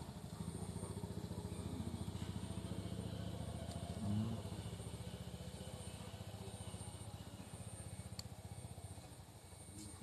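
A small engine running steadily at idle, a fast even low pulse, with a brief louder low bump about four seconds in.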